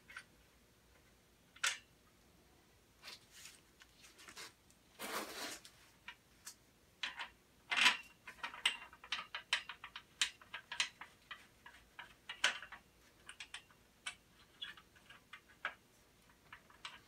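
Small metal hardware being fitted and tightened by hand: scattered clicks and ticks of bolts, nylock nuts and a wrench, coming thick and fast in the middle, with a short rustling scrape about five seconds in.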